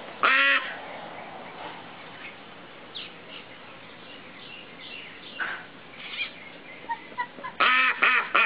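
Domestic ducks quacking: one loud quack just after the start, a few soft calls in the middle, then a quick run of loud quacks near the end.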